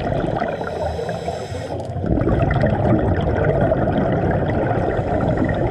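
Underwater noise recorded through an action camera's housing, with the gurgle of scuba divers' exhaled bubbles. The sound changes abruptly about two seconds in.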